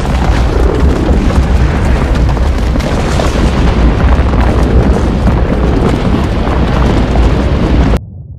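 Erupting volcanic fissure with lava fountains: a loud, continuous deep rumble dense with bursts and pops. It cuts off suddenly about eight seconds in, leaving a much quieter low rumble.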